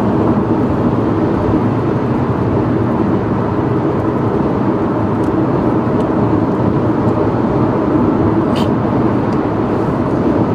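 Steady road noise inside the cabin of a moving car: a constant low rumble and hiss of tyres and engine.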